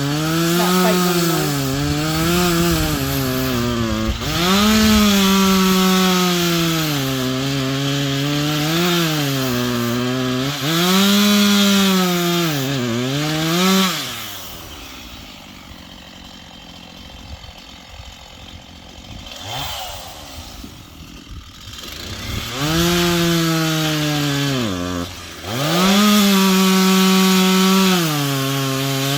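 Chainsaw running at high revs and cutting wood, its pitch sagging under load and picking back up every second or two. About halfway through it drops to a quiet idle for several seconds, then revs up and cuts again.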